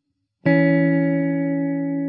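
Background music: after a brief silence, a chord is struck about half a second in and rings on, slowly fading.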